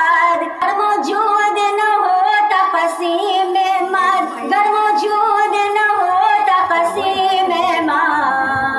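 A woman singing a devotional qasidah (manqabat) without accompaniment, in long held melodic lines with a wavering, ornamented pitch.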